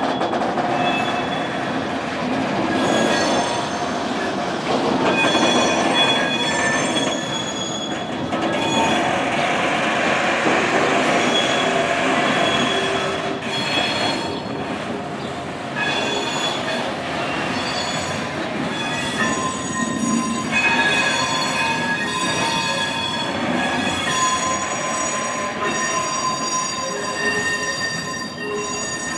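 Freight train of covered hopper wagons passing, its wheels squealing. Several high squealing tones come and go and overlap, over the steady rumble and rattle of the rolling wagons.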